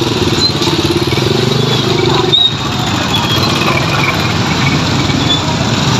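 A motorcycle engine running close by, its steady note dropping away with a click about two and a half seconds in, leaving a dense background din.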